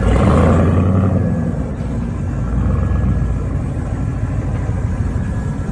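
Car engine running with a deep, steady low rumble, a little louder in the first second.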